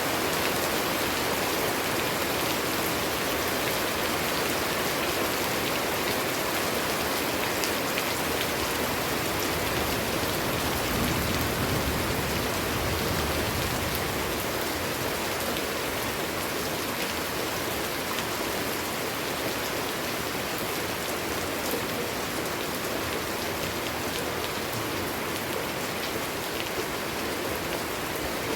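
Steady rain falling, an even hiss with many small drop ticks, the level easing slightly in the second half.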